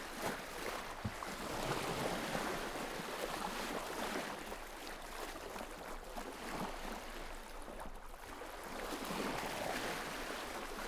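Steady rushing of water, like surf, swelling a little about two seconds in and again near the end.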